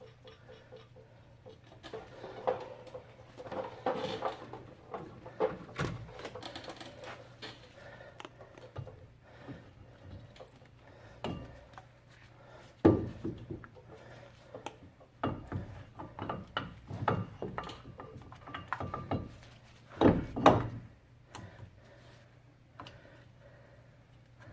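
Irregular metal clunks, taps and scrapes of brake parts being handled as a brake rotor is fitted back onto a car's front wheel hub, with two louder knocks, one about halfway through and one near the end.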